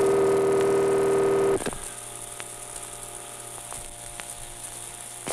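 Telephone ringback tone heard down the line: one steady, buzzy ring lasting about two seconds, then the quiet hum of the open phone line with a few faint clicks, and a click near the end as the call is picked up.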